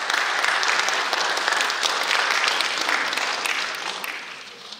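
Audience applauding, a dense clatter of many hands that dies away near the end.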